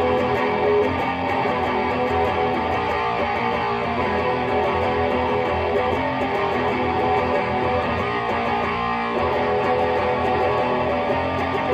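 Electric guitar riffing with heavy distortion: a 2007 Gibson Les Paul 1960 Reissue played through a Lone Wolf Audio Bullet Belt pedal into a Peavey 6505 amp and a 2x12 cabinet loaded with Texas Heat speakers.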